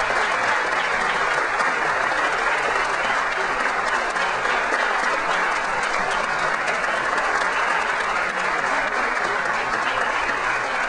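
Steady applause from a crowd, many hands clapping in a dense, unbroken stream.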